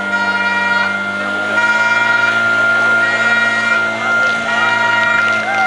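Portable fire pump engine running steadily at high revs, with a steady high whine over its note, pumping water through the hose lines to the nozzles.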